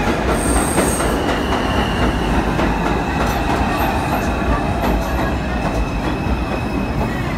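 New York City subway train running past the platform, a steady loud rumble and rattle of steel wheels on the rails with a thin high wheel squeal through the second half.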